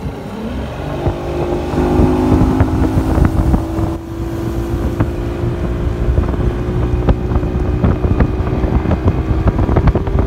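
Yamaha Pro V 150 two-stroke V6 outboard accelerating a bass boat onto plane. The engine note climbs about a second in and keeps rising slowly as the speed builds. The hull slaps choppy water in frequent sharp knocks, and wind buffets the microphone.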